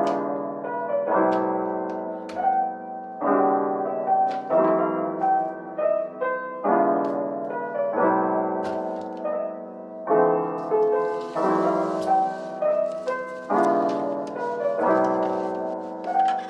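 Background music: a gentle piano tune, a new chord about every second.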